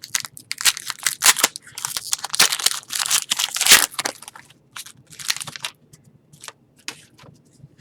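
Foil wrapper of an Artifacts hockey card pack being torn open and crinkled: a quick run of crackles and rips, thinning out to a few light clicks of the cards being handled.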